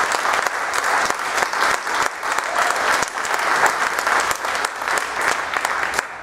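A church congregation clapping their hands in sustained applause, many dense claps together, which stops suddenly near the end.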